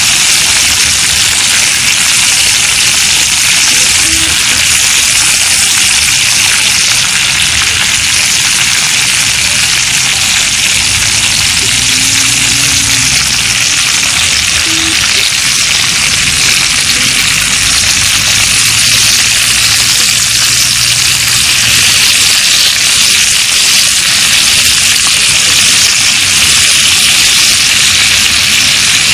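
Pork frying with a steady, loud sizzle.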